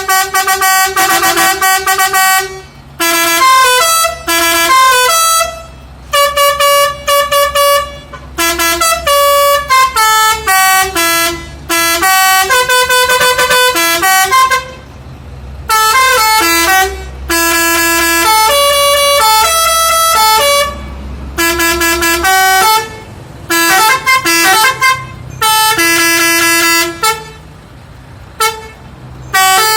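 Six-trumpet telolet air horn, sequenced by an HDI melody module, playing a run of short tunes: loud phrases of stepping horn notes, each one to three seconds long, separated by brief pauses.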